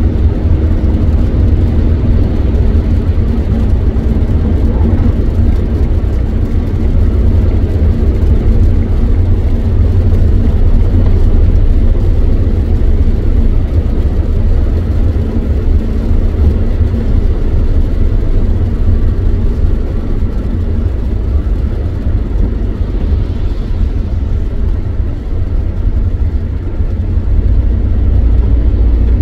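Steady road noise from inside a car cruising on a wet motorway: a deep, continuous rumble with tyre noise from the wet road surface.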